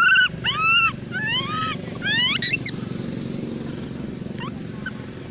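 A baby long-tailed macaque crying for its mother: about four high, arching squeals in the first three seconds, then it falls quiet apart from a faint chirp or two. A steady low rumble runs underneath.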